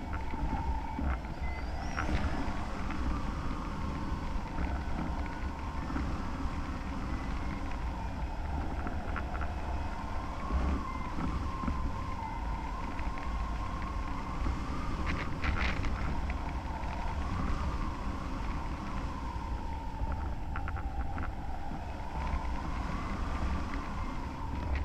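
Wind rushing over the microphone of a camera mounted on a hang glider in flight, with a faint tone that slowly rises and falls and a few short rattles and clicks.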